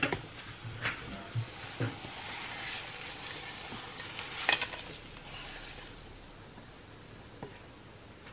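Sautéed vegetables in oil scraped with a spatula out of a frying pan into a pot of hot chicken broth: a soft hiss as they go in, with a few light knocks of the spatula against the pan.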